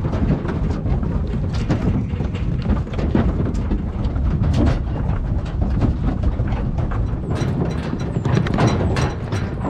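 Many sheep hooves clattering and knocking on a stock truck's crate floor and loading ramp as a mob of hoggets is unloaded, over a steady low rumble.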